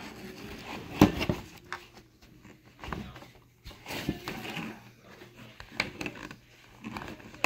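Scattered small clicks, taps and scrapes from prying at a glued rivet cap on a plastic armor belt, with one sharp click about a second in.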